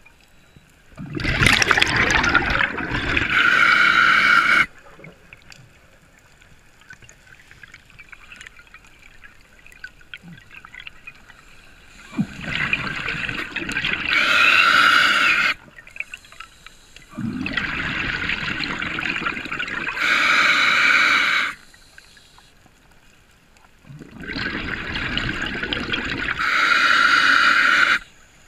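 Scuba diver breathing through a regulator underwater: four long breaths, each a rush of hiss and bubbling lasting three to four seconds, with quiet gaps between them.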